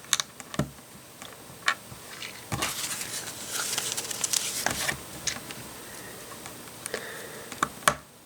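Small plastic LEGO bricks clicking and rattling as they are handled and pressed together, with a few seconds of denser rustling and clattering in the middle.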